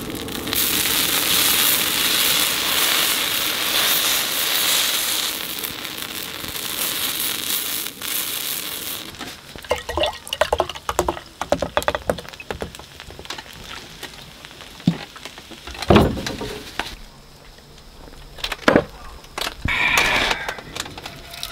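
Rice cake sizzling in oil on a flat iron griddle, a steady hiss for about the first nine seconds. Then beer glugs from a glass bottle into a glass mug, followed by a few sharp knocks, the loudest about three quarters of the way through.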